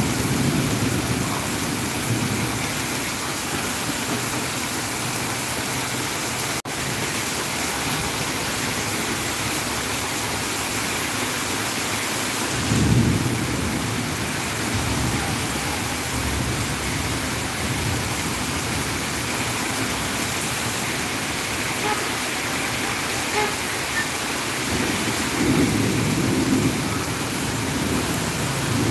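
Heavy rain pouring down steadily in a thunderstorm, with deep rumbles of thunder about 13 seconds in and again near the end.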